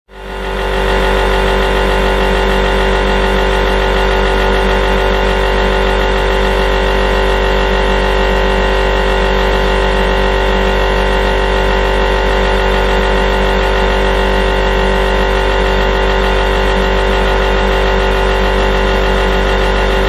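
Refrigerator humming steadily, a constant low drone with several unchanging higher tones over it, fading in over the first second.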